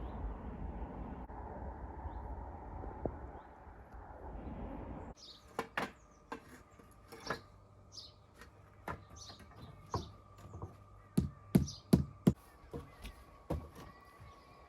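A steady rushing noise cuts off suddenly about five seconds in. It gives way to birds chirping and a string of sharp knocks and clunks, the loudest a quick cluster of three a little past the middle, over a faint steady high whine.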